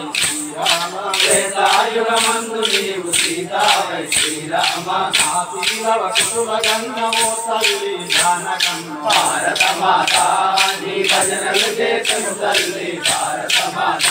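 A group of men singing a devotional prayer song together while striking chiruthalu, hand-held wooden clappers, in a steady beat of about two to three clacks a second.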